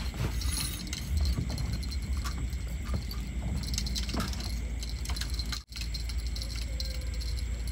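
Scattered small clicks and metallic rattles over a steady low rumble, broken by a sudden brief drop-out about five and a half seconds in.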